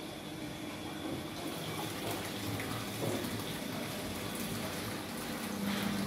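Siemens front-loading washing machine running, with a steady rush of water flowing through it.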